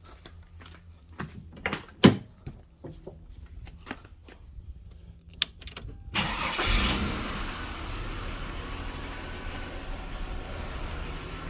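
Holden VX Commodore's engine cranked and started about six seconds in, flaring up briefly before settling to a steady idle. Before it, a few clicks and knocks, with one sharp knock about two seconds in.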